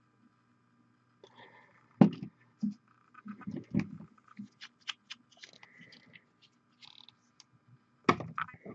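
Irregular small clicks and knocks of a plastic paint dropper bottle and palette being handled on a desk, with a loud click about two seconds in and another loud cluster near the end, over a faint steady hum.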